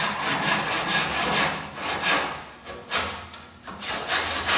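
Hand saw cutting wood in quick back-and-forth strokes, about three a second. The saw is run through the seam of a mitred wooden handrail joint to close the gap between the two pieces.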